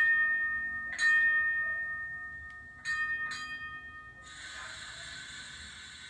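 Electronic streetcar bell from a Bowser HO-scale streetcar's sound decoder, played through the model's small speaker: a single ring, another about a second later, then two quick rings near the middle, each dying away slowly. A steady hiss takes over about four seconds in.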